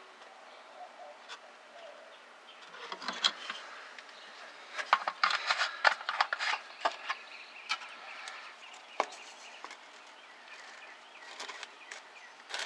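Scattered clicks, taps and short scrapes of hands working at a truck's brake master cylinder reservoir as it is opened and topped off with brake fluid, busiest in the middle.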